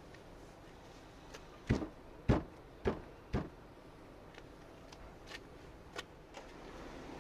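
Four sharp knocks about half a second apart, then two faint ticks: hard parts striking as a tailgate gas strut and its end fitting are handled.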